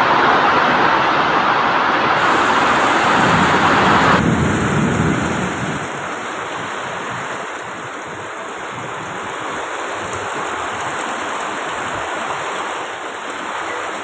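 Heavy rain and strong wind of a tornado-like whirlwind storm: a dense, steady rushing noise that drops abruptly to a lower level about four seconds in.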